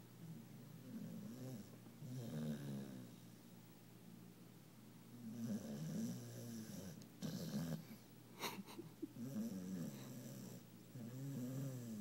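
A sleeping brindle pit bull puppy snoring, with a pitched snore on most breaths and short pauses between them.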